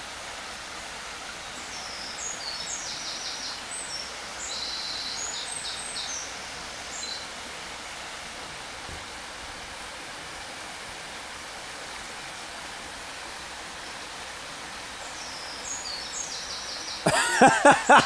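Steady rush of a shallow burn's water running over stones. A bird calls in short, high, chirping phrases several times in the first half and again near the end.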